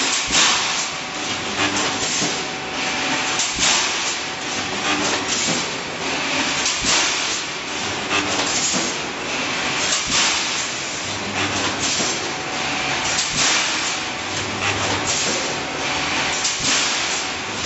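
Automatic rebar mesh welding machine running through its welding cycles: sharp clanks and hissing weld bursts about once a second as the bars are welded and the mesh is advanced, with a low hum that comes and goes.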